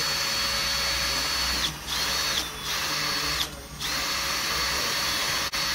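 Cordless drill spinning the rollers of a wooden roller intake prototype as a traffic cone is pulled in. The motor whine starts and stops in four runs, with short pauses about one and a half, two and a half and three and a half seconds in.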